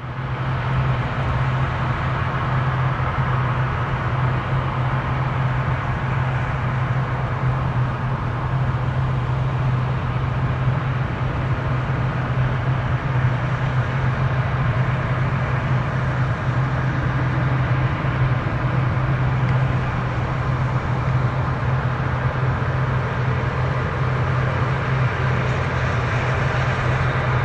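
Twin CFM56 jet engines of an Airbus A319-112 airliner on final approach, a steady drone of broad rushing noise over a strong low hum.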